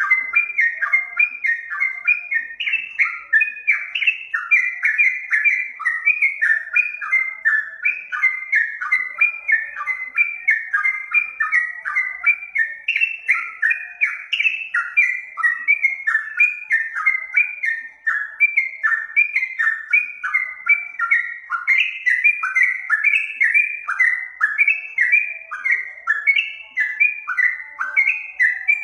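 Yellow-vented bulbul (trucukan) song: quick phrases of rising and falling whistled notes, repeated almost without a pause.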